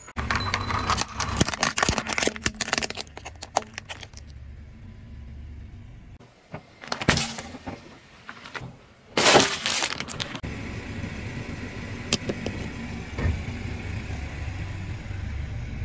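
A car tyre rolling over and crushing things on asphalt: brittle waffle ice-cream cones crackle and snap in a dense run of crunches for the first few seconds. Later come two short loud bursts and a steady low rumble of the tyre with scattered clicks.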